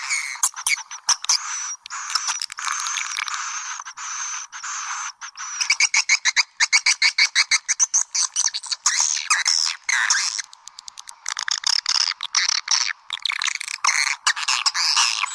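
Recorded edible-nest swiftlet calls played as a lure sound: dense, high twittering chirps mixed with trains of rapid clicks, with a run of fast, even clicks, about eight a second, from about six seconds in.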